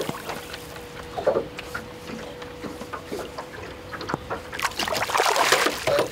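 Hooked asp splashing at the water's surface beside the boat as it is played in to the landing net, on and off at first and heaviest from about four and a half seconds in.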